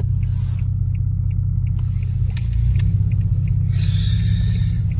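Infiniti G37x's 3.7-litre V6 idling through an ISR single-exit cat-back exhaust, heard from inside the cabin as a steady, deep rumble. A short hiss rises over it about four seconds in.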